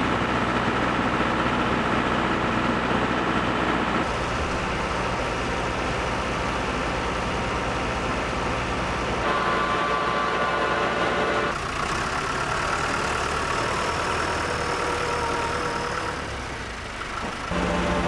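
Tractor engine running with a vertical-auger feed mixer wagon working: a steady mechanical drone with humming tones that shifts abruptly several times.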